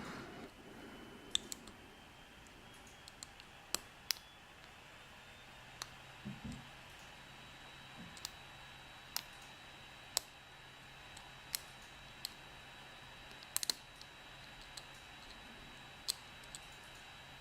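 Scattered sharp metal clicks, about a dozen at irregular intervals, from a lock pick and tension wrench working the pins of a BKS five-pin lock cylinder, with one soft low thump about six seconds in.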